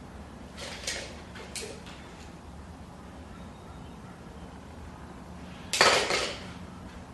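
Utility knife drawn through thin wood veneer along a straight edge: three short scraping strokes, two light ones in the first two seconds and a louder, longer one about six seconds in.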